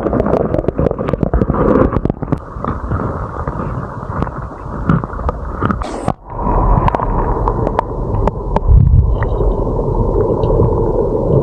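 Muffled, gurgling water noise from a camera dipped in and under a clear stream, with many sharp clicks and knocks. The sound drops out briefly and changes about six seconds in, turning to a heavier, duller rumble.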